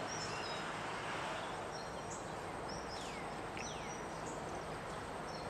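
Birds chirping and calling, with two quick downward-sliding whistles about three seconds in, over a steady outdoor background hiss.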